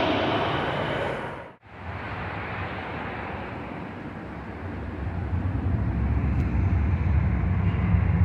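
A passing aircraft's engine noise fading away, cut off abruptly about a second and a half in. A quieter steady noise follows, with a low rumble that builds from about halfway through.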